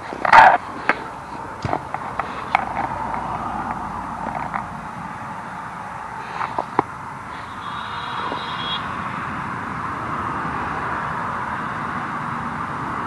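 Road traffic hissing past, growing louder in the second half. There are a few sharp handling knocks and clicks in the first two seconds.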